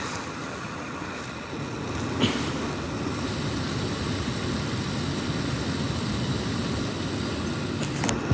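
Fan running with a steady whooshing noise, with a single short knock about two seconds in.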